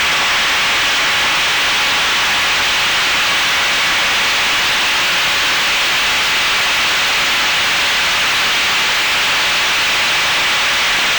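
Steady rushing hiss of airflow and propeller noise picked up by the onboard camera microphone of a fixed-wing FPV aircraft in flight, with a faint steady whine underneath.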